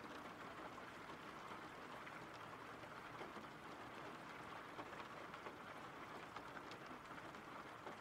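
Faint, steady recorded rain ambience: an even hiss of rainfall with scattered light drop ticks.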